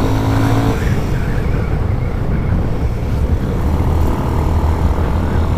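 Motorcycle riding along: a steady rush of wind noise on the microphone over the running engine.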